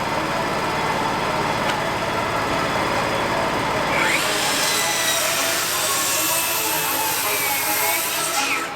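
Power saw cutting wood: a steady running noise, then about four seconds in a high whine rises and holds with a bright hiss as the blade cuts, stopping just before the end.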